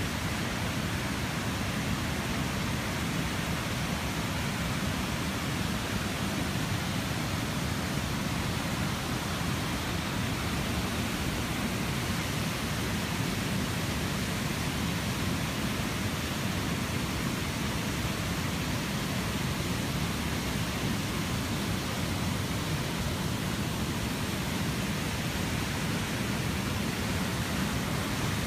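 Steady rushing of flash-flood water: a normally dry creek running as a wide, muddy torrent, mixed with heavy rain.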